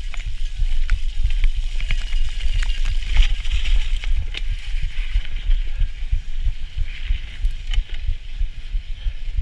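Bicycle ridden fast over a rough, snowy and muddy trail, heard from a camera mounted on the handlebars: a constant low rumble and buffeting from the bars and wind, with a steady hiss and scattered clicks and rattles from the bike and the trail.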